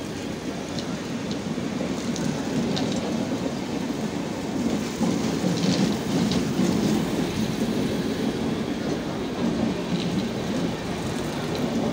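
Rajdhani Express passenger coaches passing close at full speed: a steady rushing rumble of wheels on rail and displaced air, with a few faint clicks.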